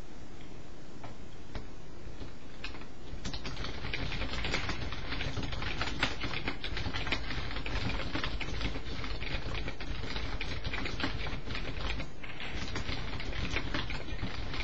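Fast, irregular clicking of typing on a computer keyboard. It starts about three seconds in and breaks off briefly near the twelve-second mark, over a steady low hum.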